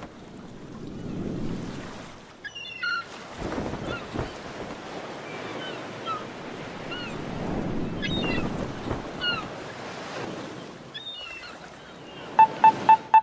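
Waves washing and wind, a noise that swells and fades every few seconds, with short bird chirps over it. Near the end a rapid series of short electronic beeps starts, the opening of music.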